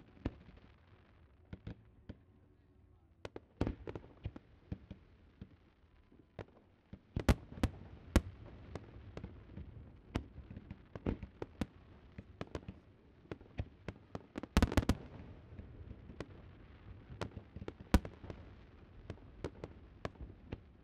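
Fireworks display: a steady run of separate bangs and pops from bursting shells, irregularly spaced. The loudest blasts come about seven and eight seconds in, in a quick cluster around fifteen seconds, and once more near eighteen seconds.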